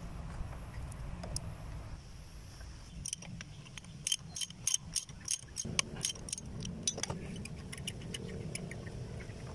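Small metal parts clicking and tapping against each other as a pressure washer's brass pump head, its valve parts and a bolt are handled. There are about a dozen sharp clicks between about three and seven seconds in.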